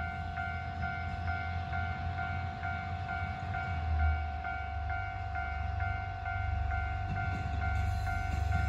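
Japanese level crossing's electronic warning bell ringing, a steady 'kan-kan' pulse about twice a second. Beneath it is a low rumble that grows near the end as a JR Shikoku 1000 series diesel railcar draws near.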